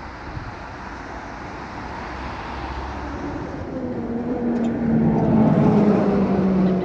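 A historic tram approaching and passing close by: rolling noise on the rails grows louder, and from about halfway in, its motor and gear whine comes up as several steady tones that sink slightly in pitch as the tram slows for the stop.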